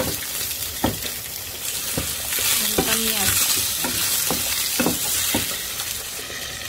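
Onion, garlic, ginger and sliced kamias (bilimbi) sizzling as they sauté in a nonstick pan, with a wooden spoon scraping and stirring through them about once a second.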